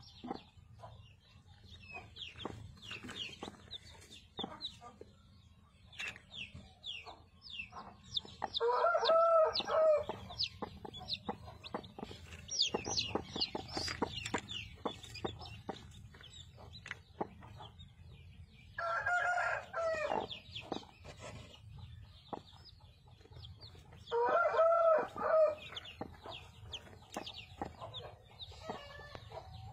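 Newly hatched desi chicks peeping continuously in short high chirps. Three times, a loud drawn-out chicken call of about a second and a half rises over the peeping.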